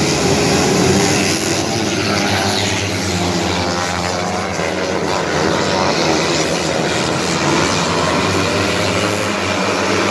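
A pack of small winged dirt-track race cars racing round the oval, many engines running hard at once, their pitch rising and falling as the cars pass.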